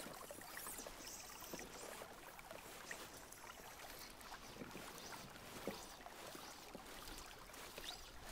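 Faint water sounds around an inflatable raft being rowed on a calm river: oars dipping, with a few soft splashes and drips.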